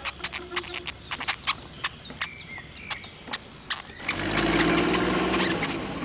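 Irregular sharp clicks, several a second, then about four seconds in the small electric motor of a toy RC excavator starts up and whirs steadily.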